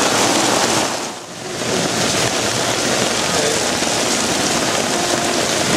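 Heavy rain pouring down, a loud steady hiss that dips briefly about a second in.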